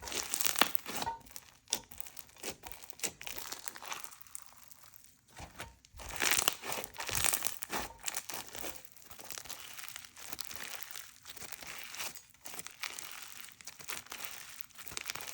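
Hands squishing and stretching an inflated icy-base slime, giving irregular crackling bubble pops and crunches.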